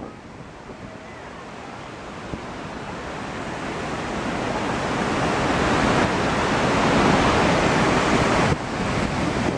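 Waterfall: a steady rush of falling water that grows steadily louder, with a sudden brief drop in level near the end.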